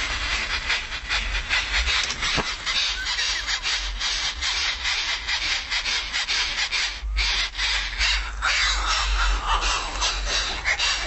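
Greater coucal nestlings begging with harsh rasping calls, a rapid run of several strokes a second, with a low rumble underneath.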